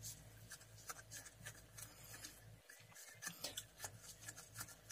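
Near silence: faint room hum with scattered light clicks and rubs of food being handled.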